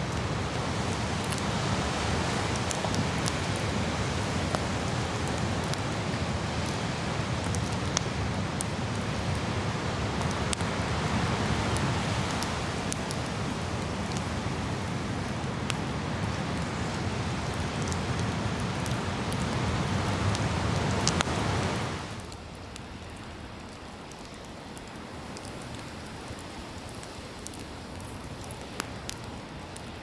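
Wood campfire crackling with scattered sharp pops over the steady wash of ocean surf. About two-thirds of the way through, the surf wash drops away abruptly, leaving quieter crackling and popping.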